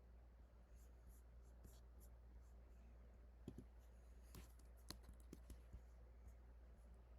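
Faint, scattered computer keyboard clicks, a few at a time and mostly in the middle, over a low steady hum.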